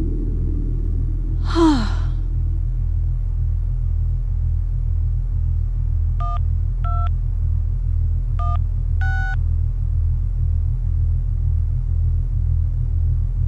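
A steady, slowly pulsing low drone. About a second and a half in, a woman gives a short falling sigh. Between about six and nine seconds, four short electronic chat-message chimes sound, one for each text message.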